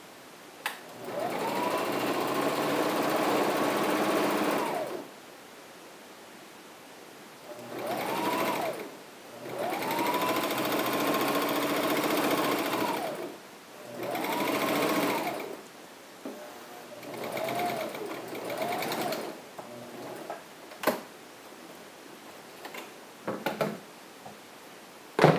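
Electric home sewing machine stitching a straight seam in several runs of a few seconds each. The motor speeds up at the start of each run and slows at the end. Near the end come a few sharp snips of scissors trimming the thread.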